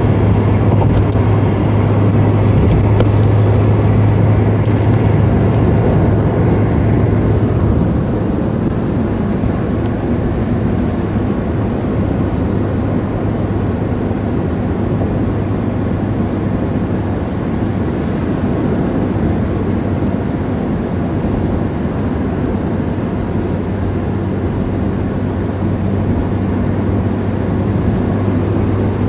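Steady cabin noise of a taxi cruising at expressway speed: a constant low hum under even tyre and road rumble. A few light clicks come in the first few seconds.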